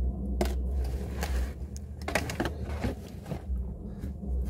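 Handling noise on the camera as it is carried and moved: a low rumble with a few sharp clicks and knocks spread through.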